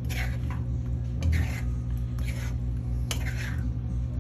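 A utensil stirring and scraping through a thick, creamy chicken and vegetable mixture in a pan, in about six short, wet strokes, over a steady low hum.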